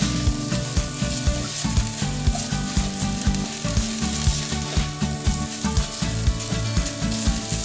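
Chicken thighs and onion sizzling and frying in a hot pan, with frequent short knocks and scrapes of a spoon against the pan as the browned bits stuck to the bottom are loosened.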